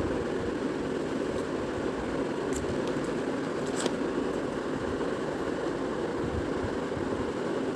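Steady rushing background noise, with a couple of faint light clicks about two and a half and four seconds in.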